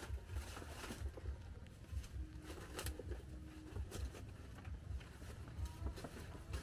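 Large fresh banana leaves rustling and crackling as they are handled and pressed into place against the leaf wall, with many small crisp clicks.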